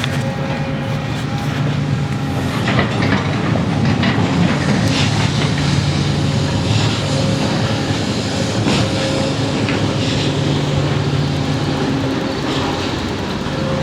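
Heavy diesel road-works machinery running steadily, with scattered metallic knocks and clatter.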